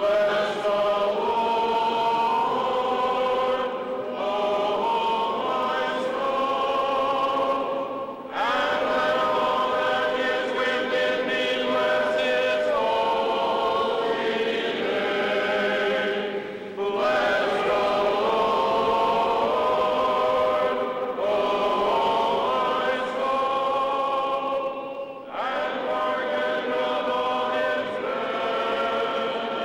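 Church choir singing a Byzantine-rite liturgical chant in several voices of harmony, in long held phrases with brief breaks about every eight seconds.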